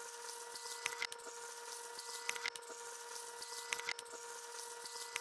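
Electrolysis rust-removal bath fizzing, with fine crackling and ticking of gas bubbles over a steady pitched electrical hum.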